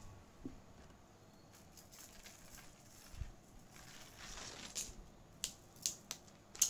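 Faint clicks and rustles of a beaded necklace being handled, its bead strands knocking together; the clicks come more often in the second half, with the sharpest one near the end.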